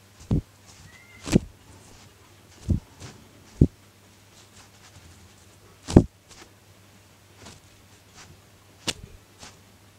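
A series of about six dull thumps at irregular intervals, the loudest about six seconds in.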